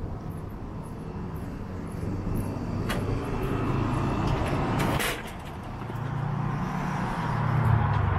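Motor vehicle running, a steady low rumble that grows louder over the last couple of seconds, with two sharp clicks about 3 and 5 seconds in.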